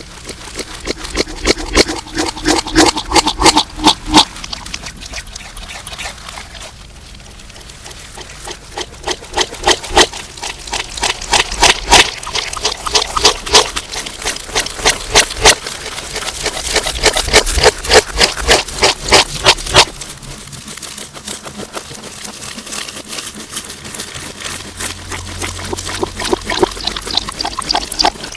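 Slime being squished and worked, a dense irregular run of wet clicks and pops, heavily distorted. The popping thins out about two-thirds of the way through.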